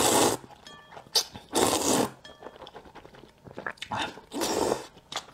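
A person slurping slippery rice noodles from a bowl of luosifen soup, three long slurps: at the start, about a second and a half in, and about four seconds in, with soft chewing and small clicks between.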